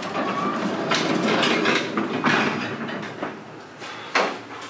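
Footsteps and rustling as people step into an old elevator car, with a sharp knock about four seconds in.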